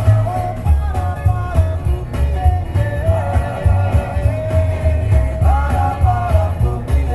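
Rock song with a male singing voice over a pulsing bass line.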